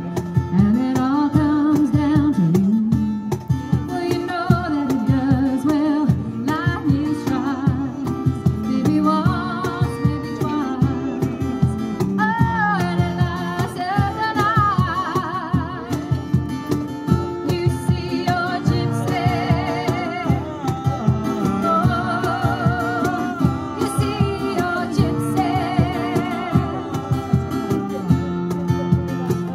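A woman sings with vibrato over a steadily strummed acoustic guitar, a live acoustic performance.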